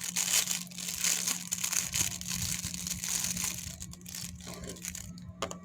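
Plastic packaging crinkling as Beyblade parts are handled, an irregular rustle that thins to scattered clicks after about four seconds, over a steady low hum.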